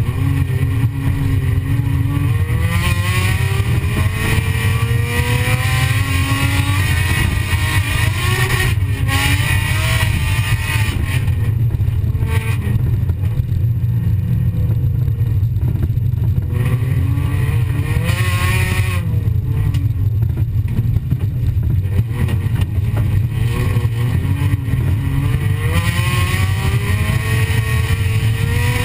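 Folkrace car's engine heard from inside the cabin, revving up and dropping back again and again as the driver accelerates, shifts and lifts on a dirt track, over a heavy, steady low rumble.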